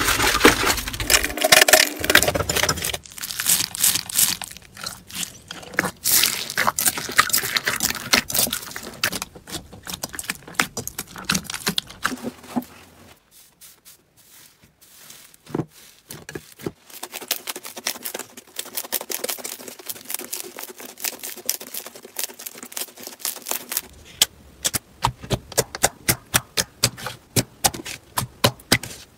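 Hands kneading, squeezing and pressing slime: dense wet crackling and squelching with many small pops, which dies down to a faint stretch partway through. Near the end, sharp pops and clicks of clear slime being pressed come about two or three a second.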